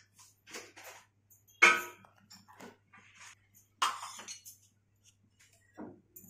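Long perforated steel slotted spoon stirring and scraping crumbled chapati around a dry iron kadhai: irregular scrapes, with two sharper metallic clinks about one and a half and four seconds in.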